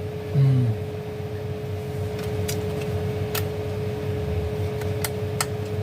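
Several small, sharp clicks and taps from multimeter probes and the emergency light's circuit board being handled during a voltage check, over a steady hum. A brief low murmur of a voice comes about half a second in.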